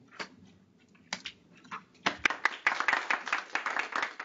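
Applause: a few scattered claps at first, then steady clapping from about halfway through.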